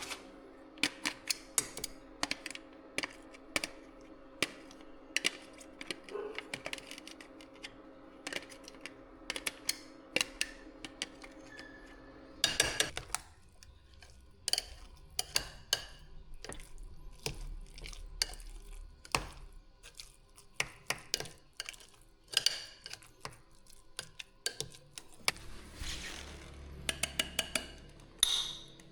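Kitchen utensils and dishes clinking and knocking in irregular sharp clicks while food is prepared. A steady hum runs under them and cuts off about halfway through.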